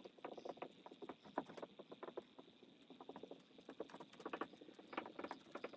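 Dry-erase marker writing on a whiteboard: faint, quick, irregular taps and scratches as the letters are stroked out.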